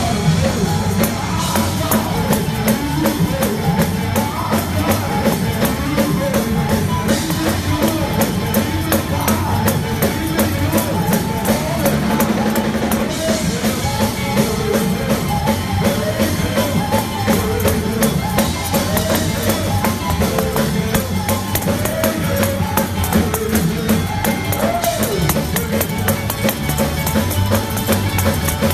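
Live gospel praise band playing an upbeat number on drum kit, keyboards and electric guitar, with a steady driving beat and a voice singing over it through the PA.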